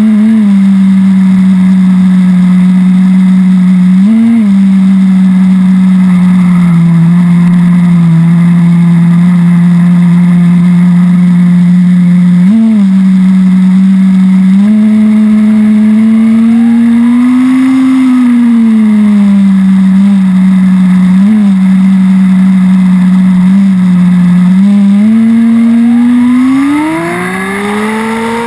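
Two-stroke .18 nitro glow engine of an HSP Warhead 1/10 buggy running loud and close. It holds a steady high pitch, broken by several quick throttle blips, and near the end it climbs in pitch and falls again. The engine is still being run in, near the end of its first litre of 10% nitro fuel.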